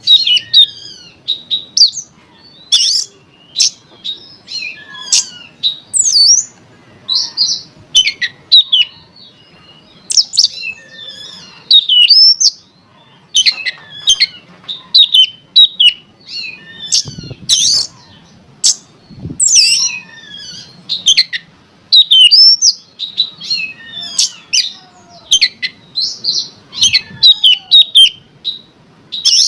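Oriental magpie-robin (kacer) singing a rapid, varied song of sharp whistles and chirps, phrase after phrase with only short gaps. It is the loud, excited song used to provoke a kept kacer into singing.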